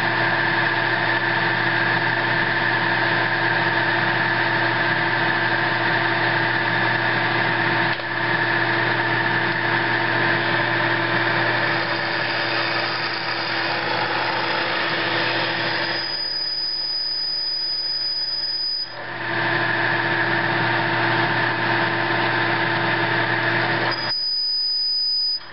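Drill press running with a drill bit cutting a hole through a galvanized steel mounting plate: a steady motor hum under the cutting noise. The cutting noise falls away twice, about two-thirds of the way in for a few seconds and again near the end, leaving a thin high whine.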